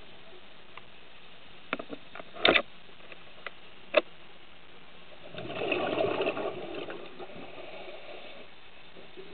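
Underwater, heard through a camera housing: a few sharp clicks and knocks, then a diver's scuba exhalation, regulator bubbles rushing out for about two seconds past the middle, over a steady hiss.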